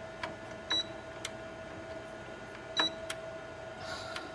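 Control panel of a Cuisinart TOA-65 air fryer toaster oven being worked: the selection dial clicks several times, and two short high beeps sound, about a second in and near three seconds, over a steady faint hum.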